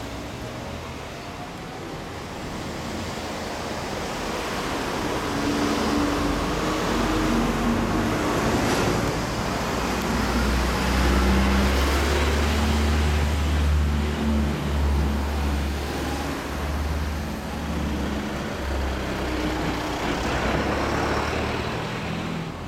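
Yamaha Cygnus-X 125 scooter's single-cylinder four-stroke engine running through an aftermarket HPM exhaust: a low, steady exhaust rumble that grows louder over the first ten seconds or so and eases a little near the end.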